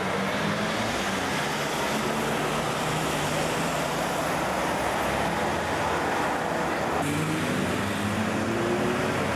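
City street traffic: cars and trams passing, heard as a steady rush of road noise. A rising tone from an accelerating vehicle comes near the start and again about seven seconds in, where the sound changes abruptly with a cut.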